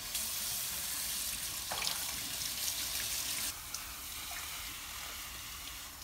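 Tap water running onto a bathroom heater-dryer's plastic mesh filter in a washbasin, splashing as the filter is rinsed of dust. The water starts at once, with a few sharper splashes, and drops to a softer rush about three and a half seconds in.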